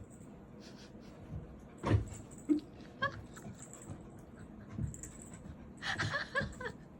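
A pet dog making short, soft whimpers and whines, a few at a time, with a single knock about two seconds in.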